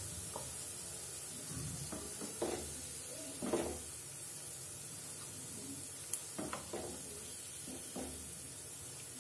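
Carrot cutlets frying in hot oil in a shallow pan, a steady sizzle. A few soft knocks come from a wooden spatula against the pan as the cutlets are lifted out.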